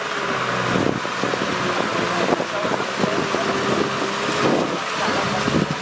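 Kubota M6040 tractor's diesel engine running steadily under load as it pulls a rotary tiller through wet paddy mud.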